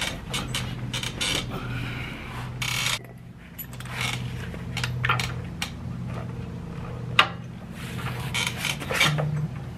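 Hand ratchet and socket wrench clicking, with metal tools clanking against the drum-brake backing plate as its nuts and bolts are worked loose, in short irregular bursts over a steady low hum.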